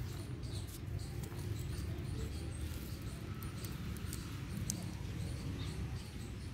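Faint, short, high chirps repeating about three times a second over a steady low rumble.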